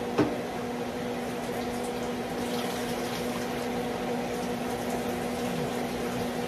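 Rabbit pieces deep-frying in vegetable oil: a steady sizzle, with a steady low hum underneath and a single sharp knock just at the start.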